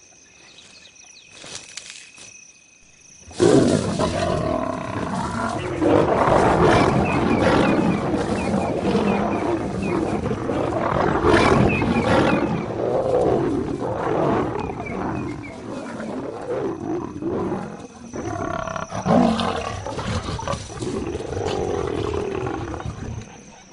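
Crickets chirring at night. About three seconds in, lions burst into loud, continuous growling and snarling: a fight between the lionesses and a charging male lion. The fighting eases briefly around the 18-second mark and fades just before the end.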